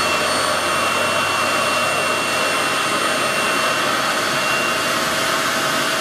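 RevAir reverse-air hair dryer running steadily on speed setting 6: a loud, even rush of suction air with a high steady whine.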